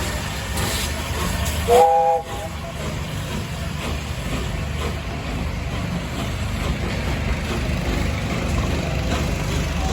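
Steam locomotive whistle giving one short blast about two seconds in, several notes sounding together as a chime, over a steady low rumble of the train.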